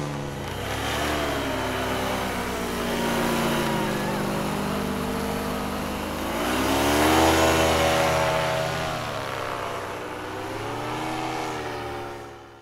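Paramotor (fan-powered paraglider) engine and propeller flying past, its pitch rising and falling several times, loudest about seven seconds in and fading near the end.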